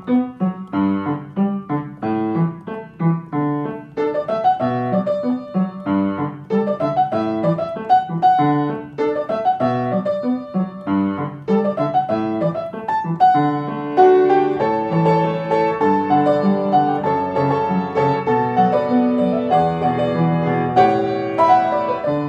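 Piano music: a steady stream of struck notes and chords, busier after the first few seconds.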